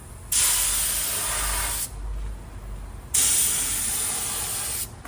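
Compressed-air paint spray gun firing in two long trigger pulls, each a loud hiss of air and paint that starts and stops sharply, with a short pause between. It is run without a regulator, with the air jacked up to about 70 or 80 psi.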